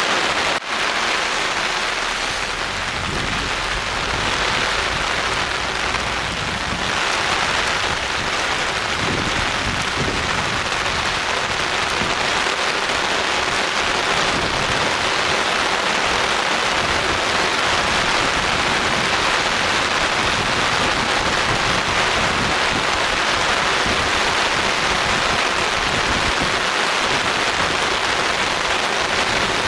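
Steady soft rain falling, an even hiss of drops on surfaces, with one brief break less than a second in.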